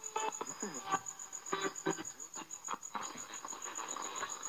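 National Panasonic transistor radio, opened up for repair, crackling and sputtering through its speaker, with short fragments of broadcast cutting in and out. A steady rapid high chirping, like a cricket, runs underneath.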